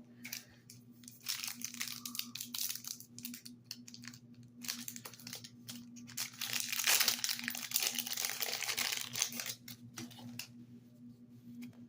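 Crinkling and tearing of a foil Yu-Gi-Oh booster pack wrapper being opened by hand, in irregular crackles that are loudest a little past the middle.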